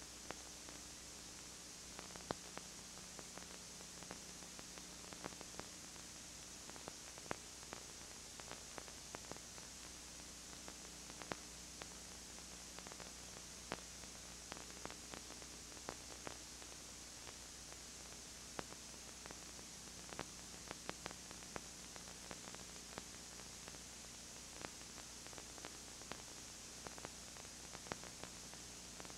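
Steady tape hiss with a faint low hum, sprinkled with scattered soft clicks and crackles: the noise of a VHS tape's audio track.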